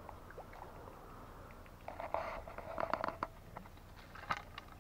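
Rustling and irregular clicks and knocks close to the microphone for about a second and a half, starting about two seconds in, and a single sharp click near the end, over a faint low rumble: handling noise as the camera is moved in the dry grass.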